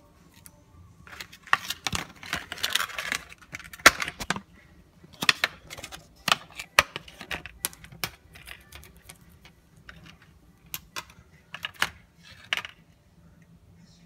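A braided Lightning charging cable being handled on a stone countertop: scratchy rustling and clicking for a few seconds near the start, then scattered sharp clicks and taps as the cable is moved about.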